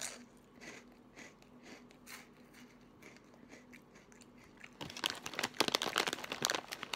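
Chewing a crunchy nacho cheese corn puff (Old Dutch Crunchys), with soft crunches about twice a second. About five seconds in, a plastic snack bag crinkles loudly as a hand reaches into it.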